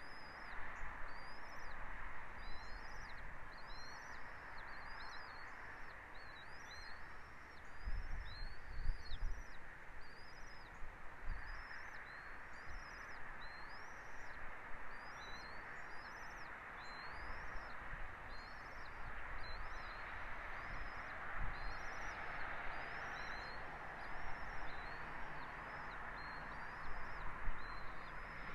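A bird calling over and over, a short high chirp that rises then falls, about once a second, over a steady outdoor hiss. A few low bumps come about eight seconds in.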